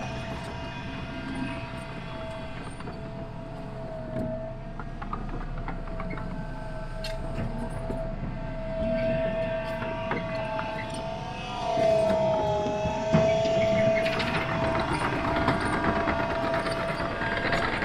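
Heavy dump truck under way, with a steady high whine that wavers briefly partway through over a low engine rumble, plus scattered rattles and knocks.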